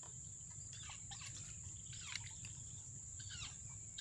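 Outdoor ambience of a steady high-pitched insect trill, with several short falling bird chirps over it and one faint click about two seconds in.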